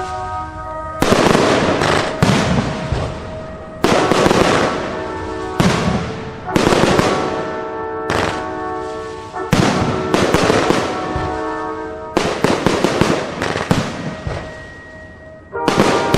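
Fireworks going off in a quick series of sharp bangs, one every second or two, each trailing off, over music with long held chords. The bangs thin out shortly before the end, then a fresh burst comes in.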